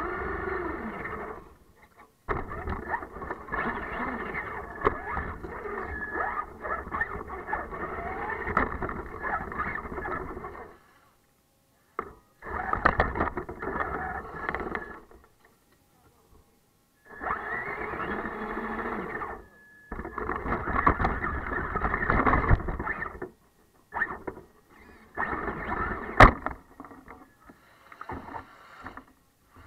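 Traxxas E-Revo electric RC monster truck driving through snow, its motor and gears whining and its tyres churning snow, heard through the case of the camera on the truck's roof. The sound comes in throttle bursts that cut off to silence several times.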